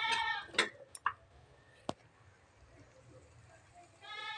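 A metal spoon clinking and scraping against an aluminium pressure cooker during stirring, with a few sharp clinks in the first two seconds. A short, high-pitched call sounds at the start and again about four seconds in.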